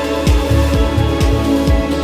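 Electronic background music with a steady kick-drum beat, about two beats a second, under sustained synth chords.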